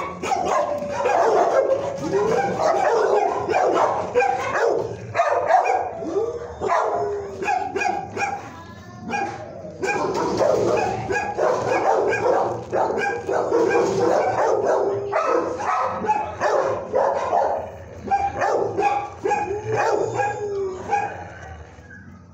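Shelter dogs barking, yipping and howling almost without a break, easing off near the end.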